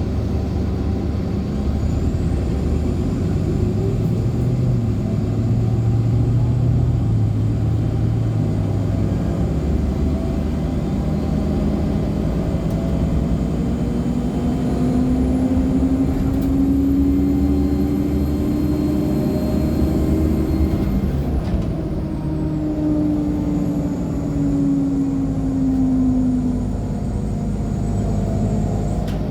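Inside a 2014 Nova Bus LFS articulated hybrid bus with a Cummins ISL9 diesel and Allison H50 EP hybrid drive, running on the road: a steady low engine drone, with a droning tone and a faint high turbo whistle that both rise as the bus gathers speed through the middle and then fall as it slows.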